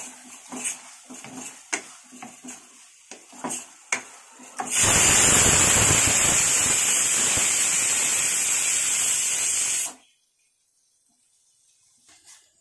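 A wooden spatula scrapes and stirs thick chicken gravy in a metal kadai in short strokes. About five seconds in, the pressure cooker whistle lets off steam in a loud, steady hiss for about five seconds, then it cuts off sharply: the one whistle that signals the jeera rice inside is cooked and the stove can be switched off.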